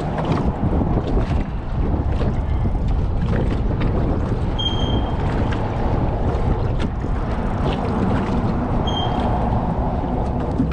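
Wind buffeting the microphone over water sounds from around a small fishing boat, a steady rumbling noise. Two brief high-pitched tones come about five seconds and nine seconds in.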